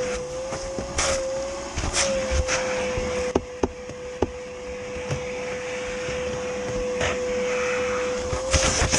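Vacuum cleaner running steadily with a constant whine, while vacuuming a car interior, broken by several sharp clicks and knocks in the first half.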